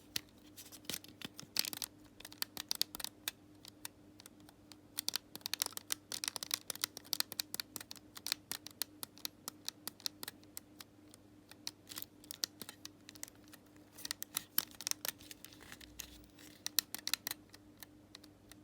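Repaired RB bumper button on an Xbox One controller being pressed over and over, giving many quick plastic clicks in irregular runs, a sign the refitted bumper now clicks properly. A faint steady hum sits underneath.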